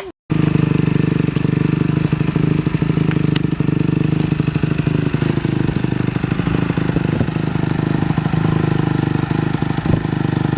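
Dirt bike engine running steadily at a low, even speed, loud and close, starting just after a cut at the very beginning.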